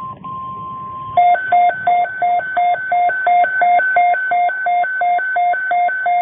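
Emergency alert tones: a steady single-pitch tone for about a second, then rapid electronic beeps alternating between a low and a high pitch, about four a second.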